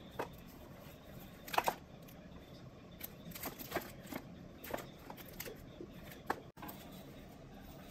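Hands opening a chocolate gift box and rummaging through foil- and paper-wrapped chocolates: scattered light crinkles and clicks, the loudest pair about a second and a half in.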